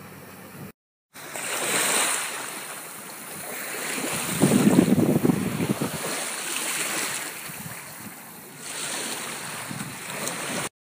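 Wind gusting across a phone microphone: a rushing noise that swells and fades, loudest about four to five seconds in.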